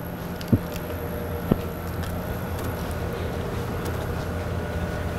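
Steady low mechanical hum of a large warehouse hall with a faint high whine over it, and a few light taps of footsteps on the concrete floor.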